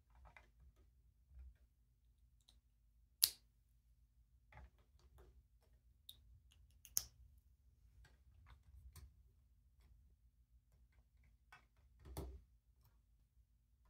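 Plastic LEGO bricks being handled and pressed together: scattered small clicks and rustles, with two sharp snaps about three and seven seconds in and a heavier knock about twelve seconds in as a piece is pushed onto the stand.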